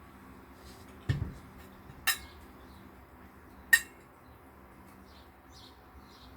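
Cutlery against a dish: a dull thump about a second in, then two sharp clinks, the second the loudest.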